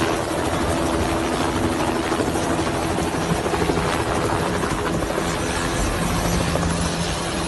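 Helicopter running close by as it tries to land: a loud, steady rush of rotor and engine noise with a fast rotor flutter underneath.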